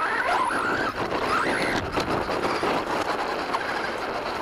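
Radio-controlled monster truck driving over gravel, heard from a camera on its own chassis: the drivetrain whines in short rising and falling glides as the throttle changes, over a steady crunching rush from the tyres on loose stones.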